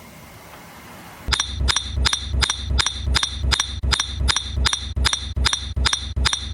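A regular mechanical clicking, about three sharp clicks a second with a slight metallic ring, over a steady low hum; it starts about a second in.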